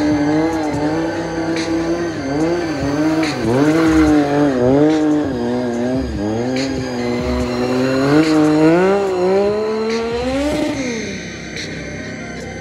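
Triumph Street Triple's three-cylinder engine, through a full-system exhaust, held at high revs and rising and falling with the throttle during a smoky rear-tyre drift, with tyre squeal. The revs drop away sharply near the end.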